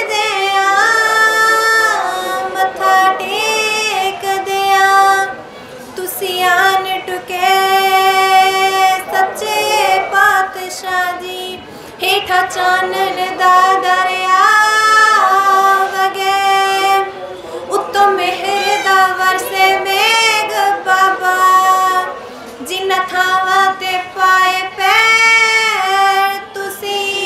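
A young woman singing a verse solo into a microphone, holding long notes in phrases of several seconds with short breaks between them.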